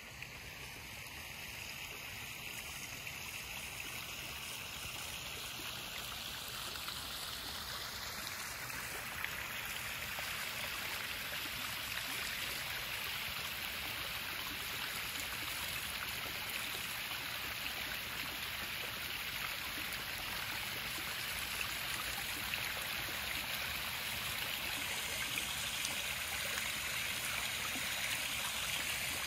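A small rock waterfall splashing into a backyard koi pond: a steady rush of falling water that grows louder over the first ten seconds or so as it gets closer, then holds steady.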